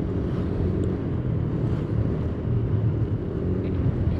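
Motorcycle engine running steadily while riding at a constant speed, over a steady rush of road and wind noise.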